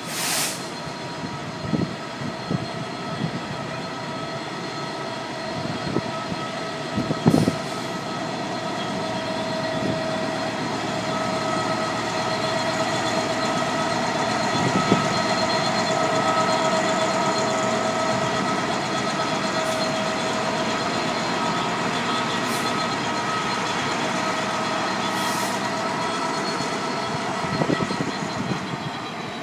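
Class 66 diesel-electric freight locomotive with its two-stroke V12 engine, hauling cement wagons past. It runs steadily with a mix of steady tones and grows louder over the first half. A few sharp knocks come through.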